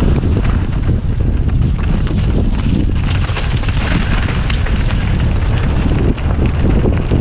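Wind buffeting the microphone of a camera riding with a mountain bike at speed on a downhill race course, over a constant rumble of tyres on rough dirt and a stream of knocks and rattles from the bike. About three seconds in a hissier rush swells for a second or so and then drops back.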